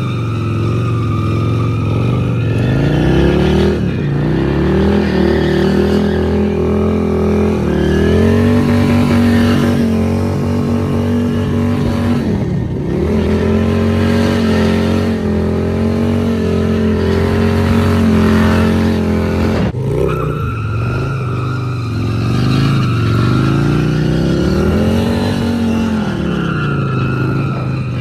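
Harley-Davidson V-twin engine revved hard while the motorcycle circles and slides, its rear tyre spinning on the asphalt. The revs climb, hold high for several seconds, drop briefly and climb again a few times.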